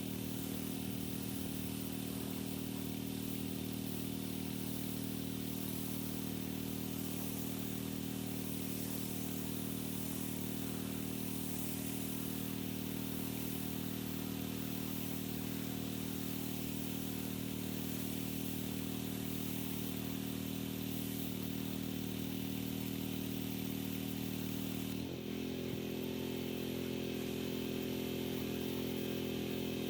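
Gas-engine pressure washer running steadily. About 25 seconds in, its engine note dips briefly and changes pitch, then runs steadily again.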